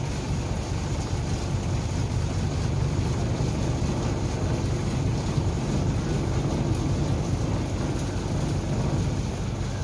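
Truck-mounted crane's diesel truck engine running steadily at a low, even pitch, powering the crane while it holds a load.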